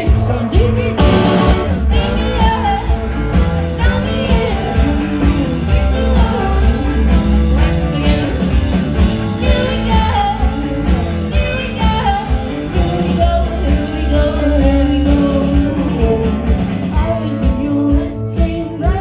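Live indie rock band playing a song: a woman singing the lead over electric guitars and drums, loud and continuous.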